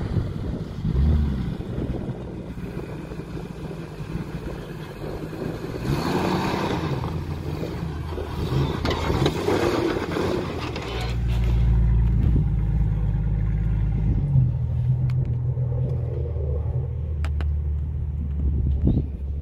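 Jeep engine running at low crawling speed off-road, its low drone rising and falling; a rushing noise swells and fades in the middle, then the engine drone turns loud and steady near the mic for the rest.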